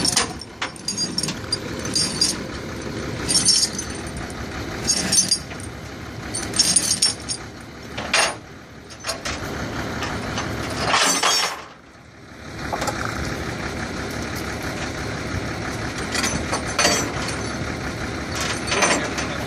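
A vehicle engine running steadily, with brief rustling noises every second or two and a short lull about twelve seconds in.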